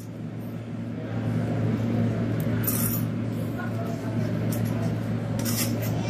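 A metal pizza server scraping and clinking against a perforated metal pizza tray, a few light metallic scrapes and taps, the loudest about two and a half to three seconds in and again near the end. Under it run a steady low hum and a murmur of voices.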